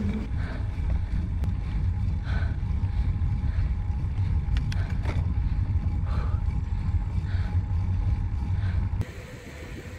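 Wind rumbling on the microphone of a bicycle-mounted camera riding fast down a paved mountain road, a heavy steady low rumble. About nine seconds in it drops suddenly to a much quieter, thinner noise.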